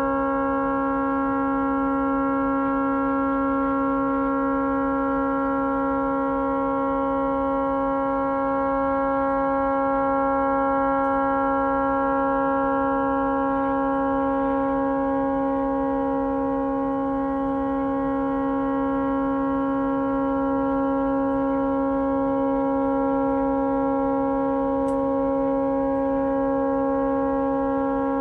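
A tugboat's horn stuck on, sounding one continuous, unchanging chord of steady tones from a distance: the horn has malfunctioned and cannot be shut off.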